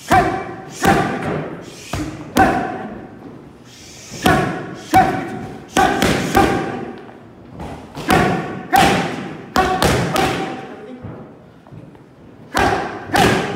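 Boxing gloves landing punches on newly broken-in Rival pro focus mitts: sharp smacks, each with a short ring, in quick combinations of two to four hits with brief pauses between them.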